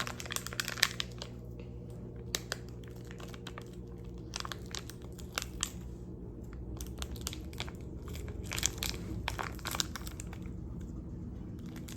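Hands squishing and stretching a gooey slime, giving scattered wet clicks and crackles in clusters, over a steady low background hum.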